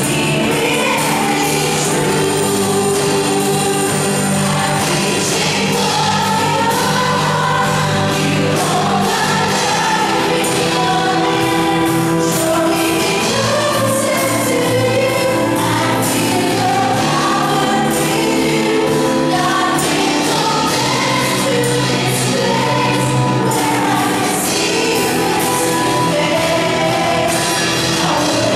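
Live contemporary worship music: a band of drums, electric bass, electric guitars and keyboard playing while a group of women sing together into microphones.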